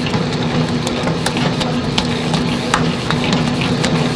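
Electric dough mixer running, its motor humming steadily as the hook turns dumpling-wrapper dough in a metal bowl, with scattered knocks.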